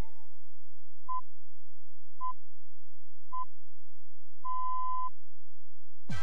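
Three short electronic beeps of one steady pitch, a little over a second apart, followed by one longer beep at the same pitch, in the pattern of broadcast time-signal pips. The last notes of a jingle fade out at the start.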